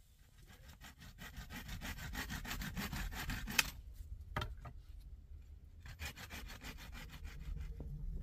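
Saw cutting through wood: a run of quick, even rasping strokes lasting about three seconds, a single knock, then a second, shorter run of strokes.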